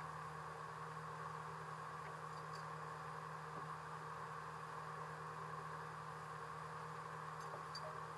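A faint, steady mechanical hum that does not change.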